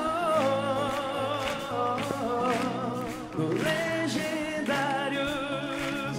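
Live sertanejo band music, with long wavering sung notes over steady bass and chords.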